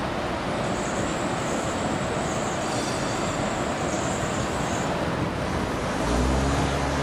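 Steady city street traffic noise, with a faint high-pitched squeal for several seconds in the middle and a low engine hum coming in near the end.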